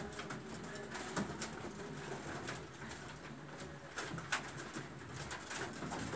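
A pigeon or dove cooing, with scattered short scratches of a pencil on drawing paper.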